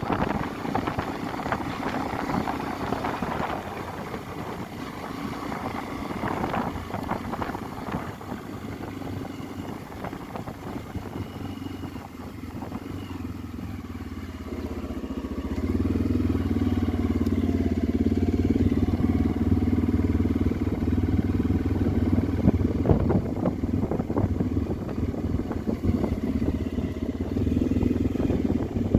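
Motorcycle engine running while being ridden, with road and wind noise. About halfway through the engine note grows louder and steadier.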